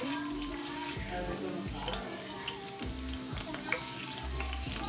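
Chopped garlic sizzling in hot olive oil in a frying pan, with a steady crackle of small pops.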